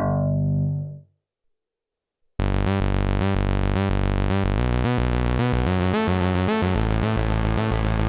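Arturia MicroFreak synthesizer run through a Behringer DR600 digital reverb pedal. The previous sound's reverb tail fades out in about a second, and after a brief silence a new patch starts abruptly about two and a half seconds in: a fast repeating pattern of notes with a low note pulsing steadily beneath it.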